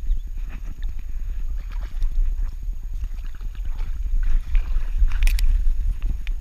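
Movement noise from a camera strapped to a dog's back while the dog climbs a bank: a dense, rapidly pulsing rumble through the harness with crackling rustles of dry grass and twigs, and a sharp scrape about five seconds in.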